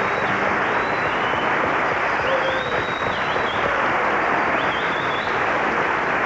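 Studio audience applauding steadily, with a few high whistles rising out of the clapping.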